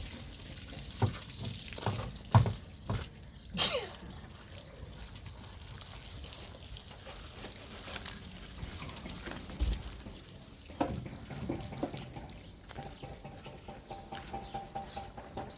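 Washing by hand: water splashing and trickling, with several sharp knocks and clinks in the first four seconds.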